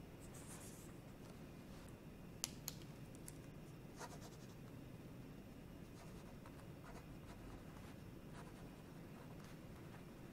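Near silence: quiet room tone with a few faint clicks, two close together about two and a half seconds in and another a little later.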